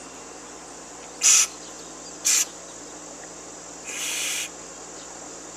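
Aerosol carburetor-cleaner can spraying into the carburetor's jets and passages in short hissing bursts: two quick squirts, then a longer one about four seconds in.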